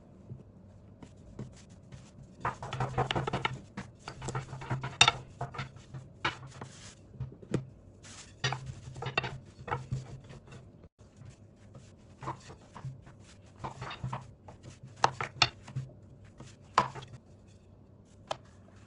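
A long thin wooden rolling pin (oklava) rolling over yeast dough on a wooden tabletop, rolling it out thin: stretches of soft rolling rustle broken by many sharp wooden clicks and knocks.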